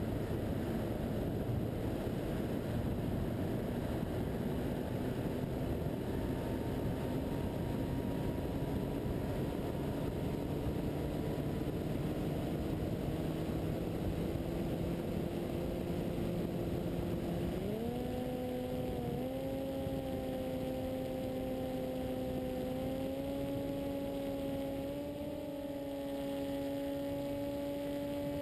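Motor and propeller of an FPV radio-controlled plane heard from its onboard camera, a steady drone over heavy wind rush. The pitch creeps up slowly, then jumps higher about two-thirds of the way through and steps up twice more as the motor speeds up.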